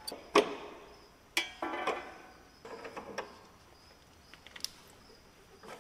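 A handful of separate sharp metal clinks and knocks from a wrench and hand tools at a compact tractor's clutch linkage, while the pedal free travel is being adjusted, with quiet between them.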